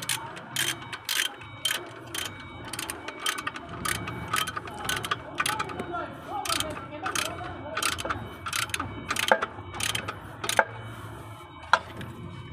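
Ratchet wrench clicking in repeated strokes as it turns the clutch pressure plate bolts on the flywheel, with a short pause near the end.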